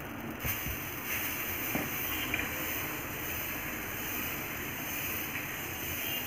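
Pesarattu batter (green gram and raw rice) sizzling with a steady hiss on a hot dosa tawa as a ladle spreads it in circles, with a couple of faint ladle taps.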